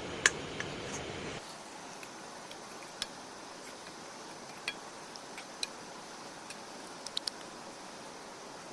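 Besan being roasted in oil in a kadhai over a wood fire: a steady hiss with scattered sharp clicks and ticks.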